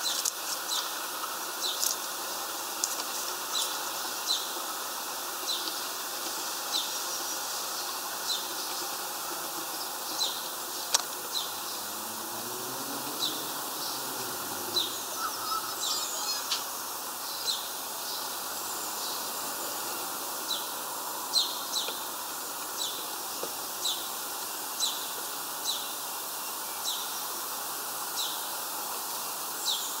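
A small bird calling over and over with short, high chirps, roughly one a second, over a steady outdoor hiss.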